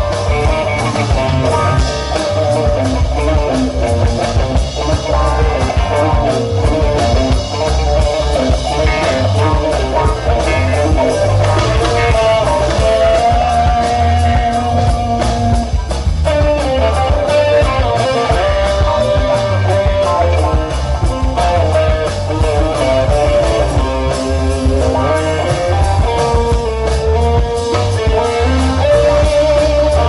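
Live rock band playing an instrumental passage: electric guitar, bass guitar, drum kit and keyboard, with a melody of long held notes over a steady bass and drum groove.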